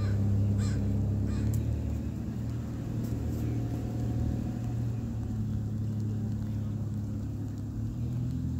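Steady low rumble with a constant low hum, with a few faint clicks in the first second or so.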